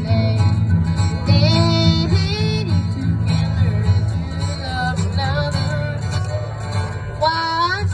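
Acoustic guitar strummed in a country-bluegrass style, with a melody line over it that slides up and down in pitch, as in an instrumental break between verses.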